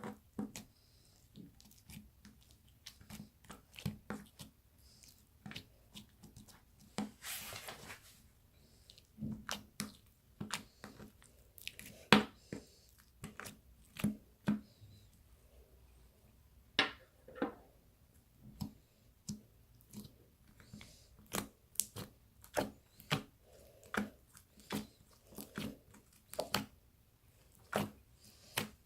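Glitter slime being pressed and squeezed by hand, making irregular sharp pops and clicks about once or twice a second, with a longer crackling stretch about seven seconds in.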